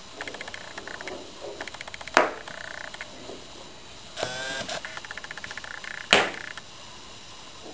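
Maine Coon kittens playing with a toy on a tile floor: bursts of rapid clicking and rattling, two sharp knocks about two and six seconds in, and a brief pitched squeak a little past four seconds.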